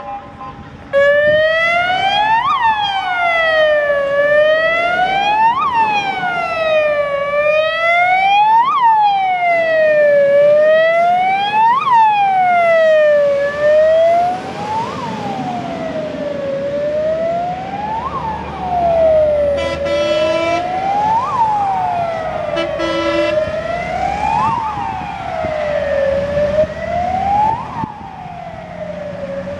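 Wailing electronic siren of a Scania P400 fire engine, a Gamet unit. Each cycle rises quickly and falls slowly, about every three seconds. It starts about a second in and is loudest in the first half as the truck pulls out and passes, then grows fainter as it drives off; there are two short horn blasts about two-thirds of the way through, and the truck's diesel engine is heard under the siren.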